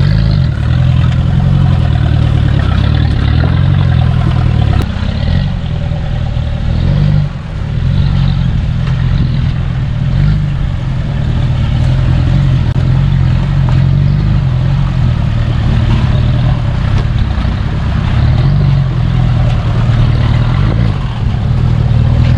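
4x4 SUV engine running at low speed on a trail, a steady low rumble that dips briefly about seven seconds in and picks up again.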